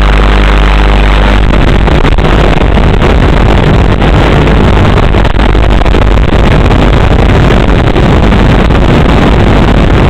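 Loud, steady rushing noise on the FPV drone's video-link recording, with a low hum under it during the first second or so.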